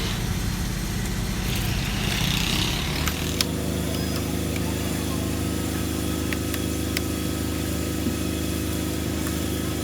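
An engine running steadily, its note shifting about three seconds in, with a few sharp metallic clicks over it.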